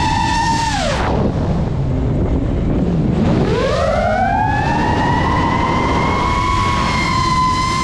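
GEPRC Mark5 FPV quadcopter's motors and propellers whining at a high, steady pitch. About a second in the pitch drops sharply as the throttle comes off, then over the next two seconds it climbs back up as power returns, and it holds steady again to the end.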